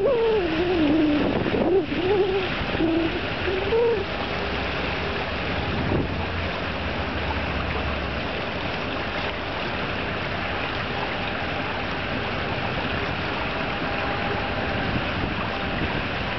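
Steady wind and water noise, an even hiss, as a breeze blows across the pool. During the first four seconds a wavering pitched sound rises and falls over it.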